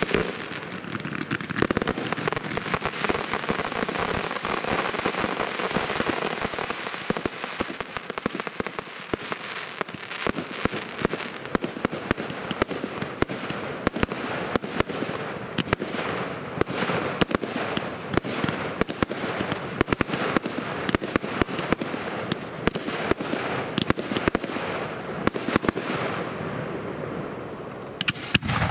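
Professional aerial fireworks bursting overhead: a continuous barrage of many rapid sharp cracks and crackling over a rushing noise, thinning out and dying away near the end.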